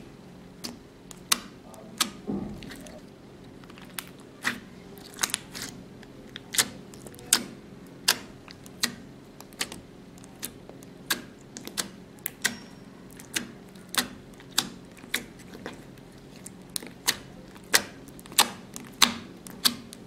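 Clear slime pressed and poked with the fingertips, giving sharp, irregular clicks and pops, roughly one or two a second.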